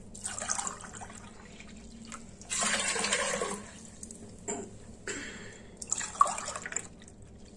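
Water poured from a mug into a steel pressure cooker onto soaked black lentils and kidney beans, in three pours of about a second each, the middle one the loudest. A couple of light knocks come between the pours.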